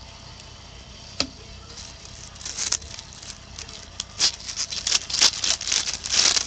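Baseball trading cards being handled: a single click about a second in, then a quick, irregular run of light flicks and rustles as cards and pack wrappers are worked through.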